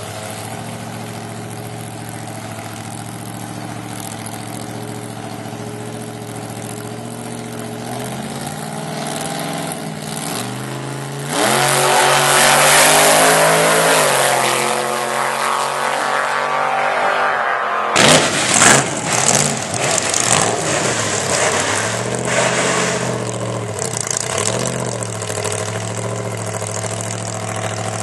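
Supercharged small-block Chevy V8 with an 8-71 blower, in a Ford Ranger drag truck, idling, then revving up into a long, loud high-rev run in the middle, typical of a burnout. After an abrupt cut there are a few sharp throttle blips, and then it settles back to a steady idle.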